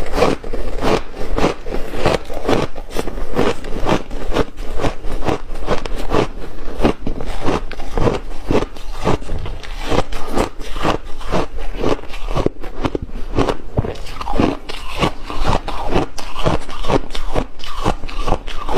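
Close-miked crunching of refrozen shaved ice as it is bitten and chewed, a fast, unbroken run of crisp crunches at about four a second.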